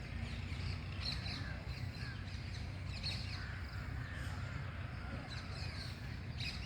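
Birds chirping and calling repeatedly, several short high calls at a time, over a steady low rumble.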